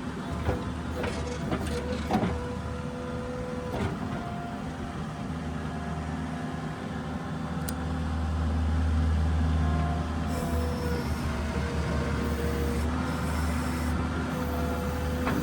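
New Holland skid steer's diesel engine running under load, swelling louder about halfway through, with a whine that comes and goes and a few sharp clanks in the first few seconds.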